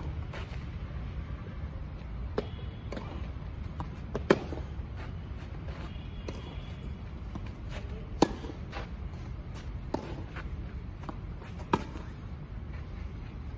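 Tennis ball being struck by rackets and bouncing on a clay court during a rally: sharp single pops every couple of seconds, the loudest about four seconds in, over a steady low background rumble.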